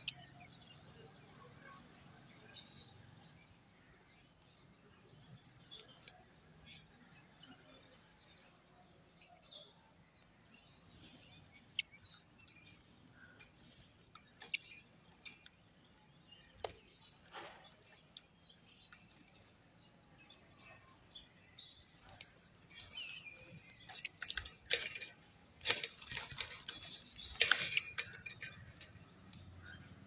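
Peach-faced lovebird (parblue euwing opaline hen) giving short scattered chirps, mixed with sharp clicks. The chirping grows busier and louder a little after two-thirds of the way in.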